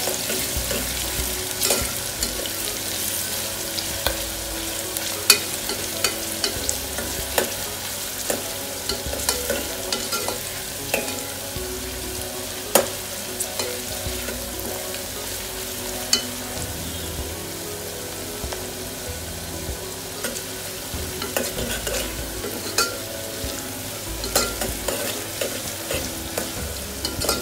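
Sliced onions sizzling in hot oil in a pressure cooker as they are stirred, frying until translucent. A steady sizzle runs under scattered clicks and taps of the stirring utensil against the cooker.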